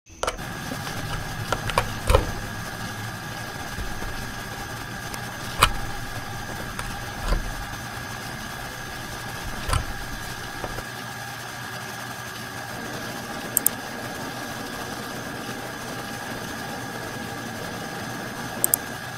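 Desktop computer running with a steady hum and a high whine. The low part of the hum drops away about halfway through. There are single mouse clicks in the first half and two quick double-clicks later on.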